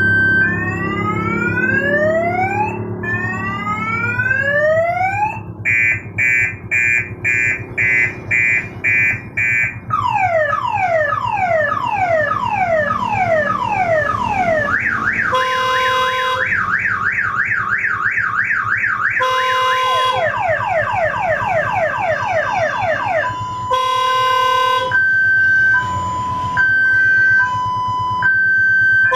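Electronic multi-tone horn (siren-style klakson) cycling through its sounds. First come several rising whoops, then a run of evenly spaced beeps about two a second. Next are quick falling sweeps, then a fast up-and-down warble broken by short two-tone blasts, and near the end a slow two-tone hi-lo alternating about once a second.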